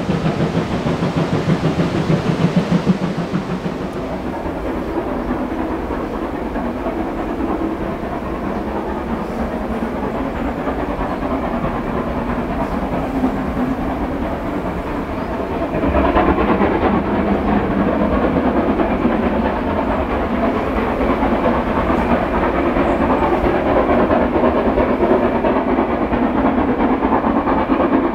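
Steam locomotive working hard up a steep 1-in-49 gradient: a fast, steady beat of exhaust chuffs with train noise on the rails. The sound grows suddenly louder a little past halfway.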